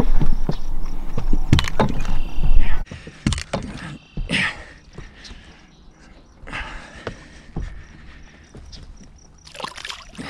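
Loud rustling and knocking of handling close to the microphone, which stops abruptly about three seconds in. Scattered quieter knocks follow, and near the end a splash as a largemouth bass is released over the side of a boat.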